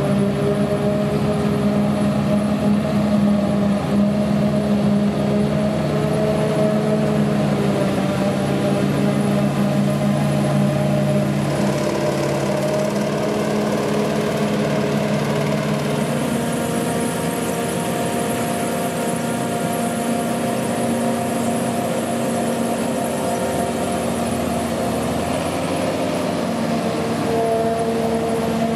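Claas Jaguar 690SL self-propelled forage harvester chopping maize, its engine and chopper running steadily under load, mixed with the engine of a John Deere tractor pulling the silage trailer alongside. About halfway through the low engine tones shift and a high whine comes in.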